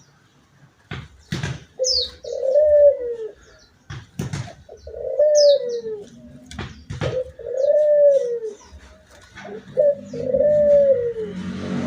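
Puter (Barbary dove) cooing an odd-sounding call: four long arched coos, each rising then falling, about two and a half seconds apart. Short high chirps from another small bird and a few sharp clicks fall between them.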